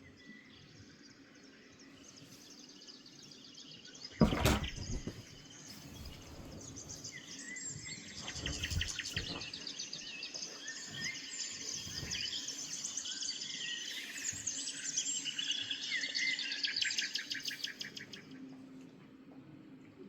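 Birds chirping and twittering in dense, quick calls from about seven seconds in, after a single sharp knock about four seconds in.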